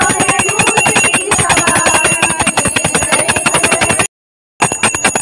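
Small brass puja hand bell rung rapidly and continuously during aarti, a fast, even clatter of strikes with a steady high ring. It breaks off for about half a second about four seconds in, then carries on.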